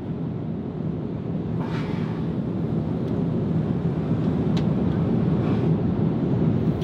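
Steady low rush of a Boeing 787-9 cabin in cruise, the airflow and engine noise heard from an economy seat, swelling slightly, with a couple of faint clicks.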